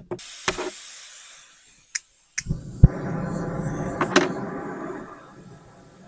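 A short hiss, a few sharp knocks, then about two and a half seconds of rushing, breathy blowing as a person blows on a smoky wood campfire to fan the flames.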